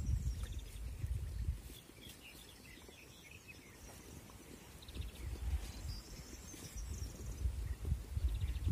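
Faint bird chirps over a low rumbling noise, which is strongest in the first second and a half and again in the second half, quieter in between.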